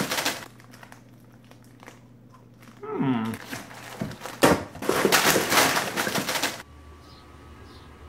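Plastic chip and snack bags crinkling and rustling as they spill out of a cardboard box onto a wooden floor and are shuffled around. The rustling stops abruptly about two-thirds of the way through, leaving faint outdoor background with a few small bird chirps.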